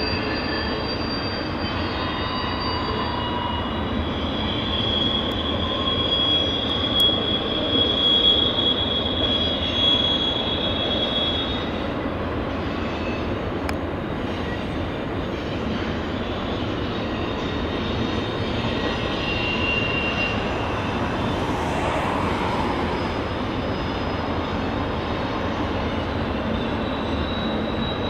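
CN double-stack container train rolling past, with a steady sound of steel wheels on rail and high wheel squeal over it. The squeal is strongest in the first dozen seconds, fades, and returns briefly about twenty seconds in.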